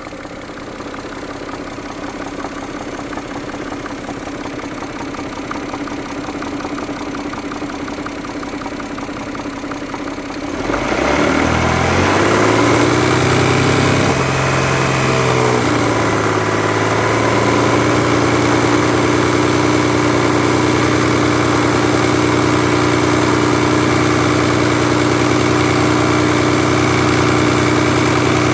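Mazda Millenia's 2.5-litre KL V6 engine running, with the knock that the owner is recording it for. About ten seconds in it suddenly gets louder, its pitch rising and then settling into a steady run.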